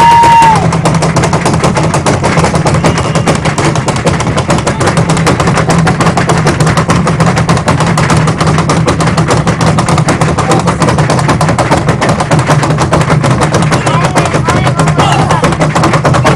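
A group of hip-slung drums playing fast, dense drumming, very loud, with strikes so close together they run into one another. A steady high tone ends about half a second in.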